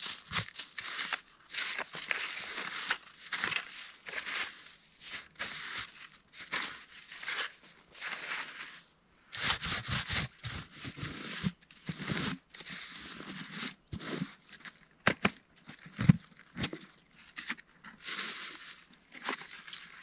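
Gloved hands digging through packed snow and handling a plastic food container and a plastic bag: an irregular run of scrapes, crunches and crinkles, with a few sharper knocks about halfway through.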